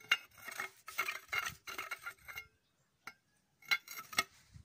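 Steel pipe sections clinking and knocking as one end of the three-quarter-inch pipe is worked into the welded sleeve that joins the two halves: a scatter of light metallic clicks with a brief ring, clustered about a second in and again near the end.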